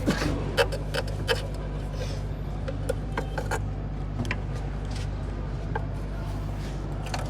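Car engine idling steadily, with sharp metallic clicks and taps of tools scattered over it, several in the first second and a half.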